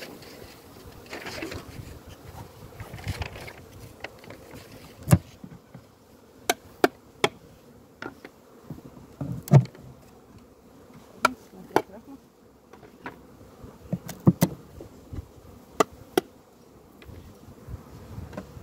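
Honeybees buzzing steadily around an open wooden hive, with about a dozen sharp wooden knocks and clicks as the frames are shifted in the hive box. The loudest knock comes about halfway through.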